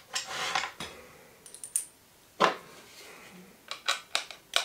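Small plastic parts being handled: a plastic battery box is picked up and worked at, giving scattered clicks and taps, with one sharp click about halfway through and a quick run of clicks near the end.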